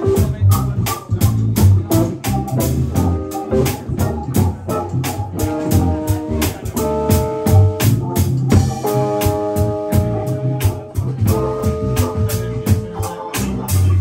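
Live rock band playing: a drum kit keeps a steady beat of about four hits a second under electric bass and electric guitar, and a stage keyboard holds long organ chords through the second half.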